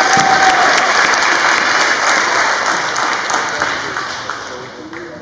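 Audience applauding, many hands clapping, fading away over the last two seconds.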